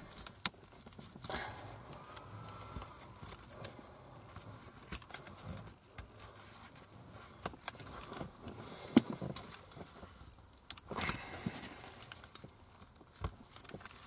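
Cloth tape wrapping being peeled back from a car seat's wiring harness by gloved hands: scattered small clicks and rustles, with a sharper click about nine seconds in and a short rasping burst about two seconds later.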